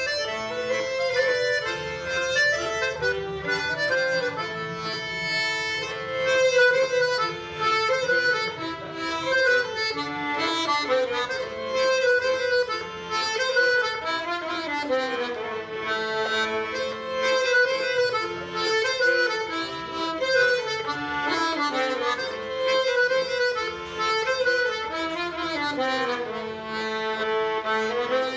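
Traditional Breton dance music: an accordion-like reed melody playing in repeating phrases.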